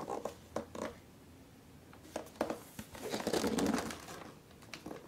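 Hands handling a cardboard kit box on a table: a few light taps and knocks as it is gripped, then a longer scuffing and rubbing about three seconds in as the box is turned over, and a couple more light taps near the end.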